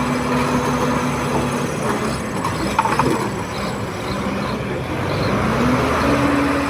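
Komatsu D31P bulldozer's diesel engine running, its pitch dropping about two seconds in and climbing back up near the end, with a short high-pitched sound about three seconds in.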